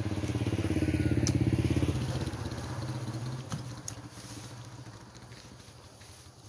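Motor scooter engine passing close by, loudest a second or two in, then fading away as it rides off. A few sharp clicks sound over it.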